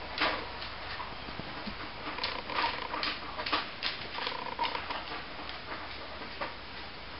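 Scattered light ticks and taps of a dog's and a kitten's paws moving on a tile floor, with a few short faint animal cries.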